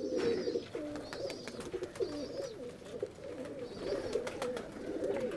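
Domestic pigeons cooing, several low wavering coos overlapping without a break, with a few fainter high chirps now and then.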